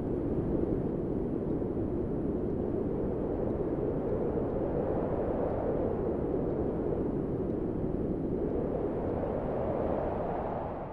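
A steady, low rumbling noise with no tune, beat or voices, level throughout and fading out at the very end.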